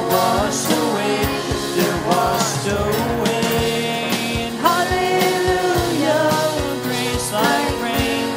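Rock-style worship song played by a band: a steady drum beat under a melody line that slides between notes.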